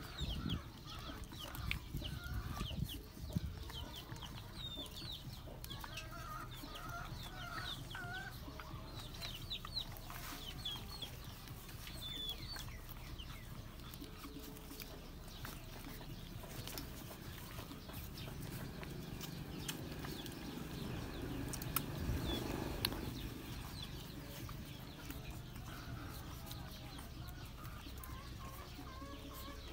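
Chickens clucking with small birds chirping in quick high notes, and a few soft knocks near the start and about two-thirds through.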